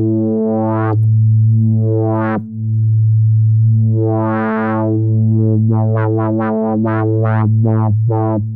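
Cherry Audio LowDown software bass-pedal synthesizer, an emulation of the Moog Taurus, holding a steady bass note while its filter cutoff is swept open and shut. The tone brightens in a slow swell around the middle, then in several quick sweeps near the end.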